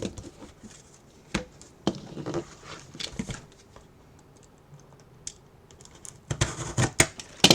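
Trading cards and their packaging being handled: scattered light clicks and scratchy rustles, with a quicker flurry of them near the end.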